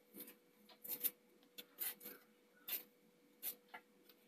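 Faint, irregular crisp ticks, about one every half second, of a kitchen knife slicing a small piece of fresh ginger held in the hand.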